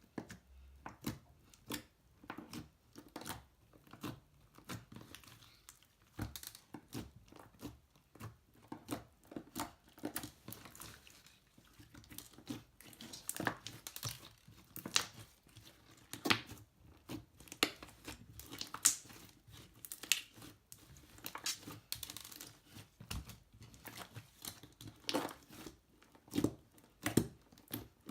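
Slime being squeezed, stretched and pressed by hand, giving an irregular stream of sticky clicks and crackles as air pockets pop.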